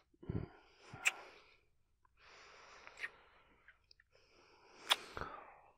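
A man breathing out and sighing close to the microphone, three breaths in a row, each with a sharp click; the loudest click comes near the end.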